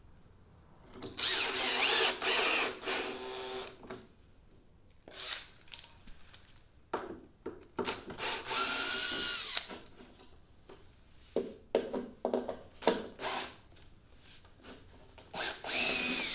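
Cordless drill running in three short bursts, its motor whine rising and falling, as it drives stainless screws through a PVC chine strip into plywood. Sharp clicks and knocks of handling come between the runs.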